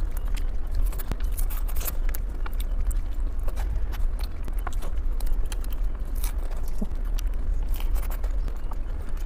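A person biting and chewing Korean sweets, with irregular small crunches and clicks over a steady low hum.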